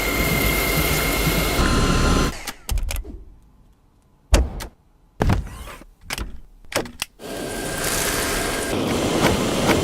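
Dyson vacuum cleaner motor running with a steady high whine, which steps down in pitch and stops after about two seconds. A few sharp clicks and knocks follow, then the motor runs again from about seven seconds in.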